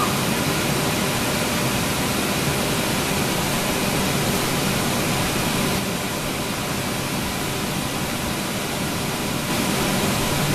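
Steady rushing of an inflatable bounce house's electric air blower keeping it inflated, with a faint hum under it; it runs slightly quieter for a few seconds past the middle.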